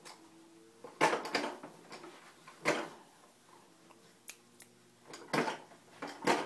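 Hollow plastic clacks and knocks from a child's Little Tikes toy lawn mower being pushed and handled, a few separate clatters with quiet between them.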